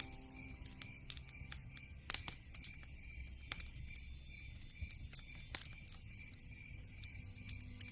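Wood fire crackling in a fireplace: irregular sharp pops and snaps over a steady low rumble from the flames.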